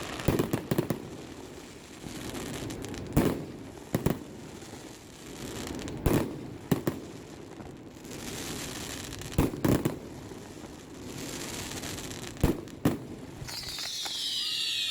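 Aerial fireworks going off: sharp bangs, mostly in pairs, every two to three seconds, with crackling in between. Near the end a high, falling whistle begins.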